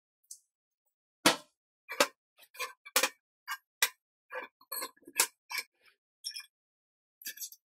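Steel parts clinking and knocking: a long threaded steel axle and a welded steel hub set down and fitted together on a steel workbench. About a dozen sharp metal knocks at an irregular pace, the loudest about a second and three seconds in.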